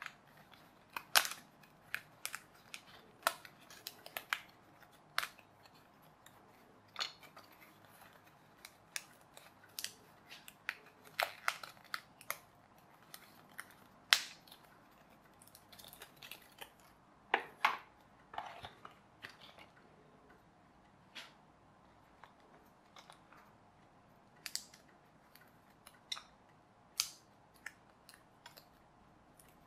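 Printed card pieces of a toy car kit being popped out of their die-cut sheet and handled: irregular sharp snaps and clicks of card, some much louder than others.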